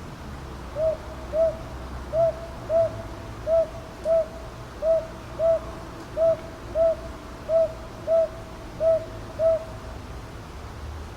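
Northern boobook (Japanese hawk-owl) calling its two-note 'hoo-hoo', seven pairs of short hoots at one pitch in an even rhythm, over a steady low background hum.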